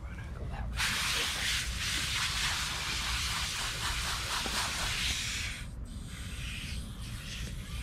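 Garden hose spray nozzle hissing as its water spray hits a wet dog's soapy coat during a rinse. The hiss starts about a second in, drops out briefly about two-thirds of the way through, then comes back weaker.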